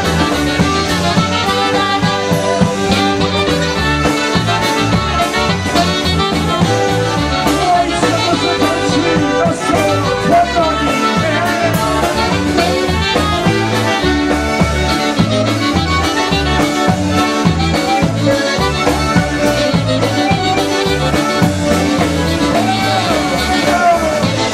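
Polka band playing live, led by a concertina's reedy chords over a steady bass beat.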